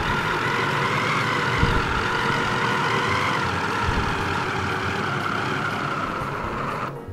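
Electric food chopper's motor running steadily, its blades mincing a wet mixture of ground meat, tomato, onion, pepper and parsley, then cutting off suddenly at the very end.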